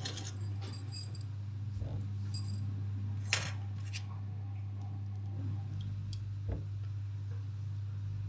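Small metal objects clinking and jingling for the first couple of seconds, then a few sharp clicks, one of them louder, all over a steady low hum from an appliance or motor.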